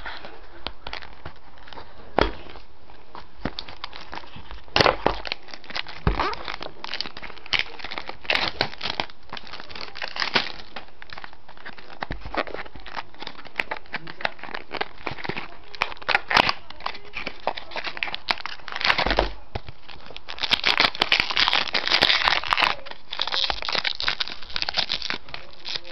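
A cardboard box of trading cards being handled and opened: scattered clicks and scrapes of cardboard, then a louder stretch of crinkling and tearing of the packaging near the end.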